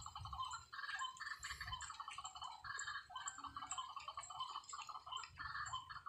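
Faint outdoor chorus of small birds chirping in many short overlapping trills, with a faint high ticking repeating about two or three times a second.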